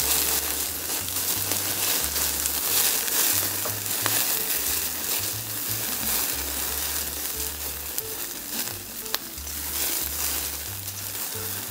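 Meat sizzling and crackling on a wire mesh grill over an open wood fire, a steady hiss with scattered pops and a couple of sharp clicks, under a low background music bass line.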